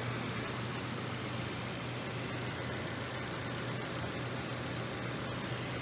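Toyota Tundra's 5.7-litre i-Force V8 idling steadily, heard from the open engine bay.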